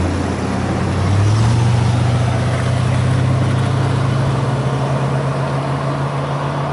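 Car engine running under load as cars take a hairpin and drive off up the road. Its low note steps up in pitch about a second in, then holds steady.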